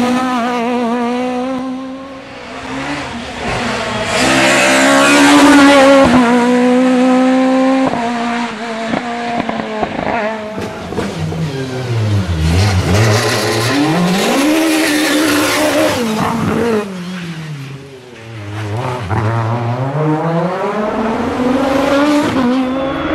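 Peugeot 306 Maxi Kit Car's naturally aspirated four-cylinder rally engine revving hard at high revs. Its pitch drops sharply and climbs again several times as the car goes through its gears and corners.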